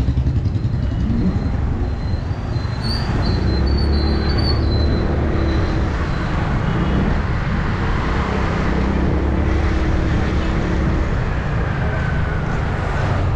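Yamaha R6 sport bike's inline-four engine with Akrapovic exhaust running steadily on the move, with road and wind noise and city traffic around it.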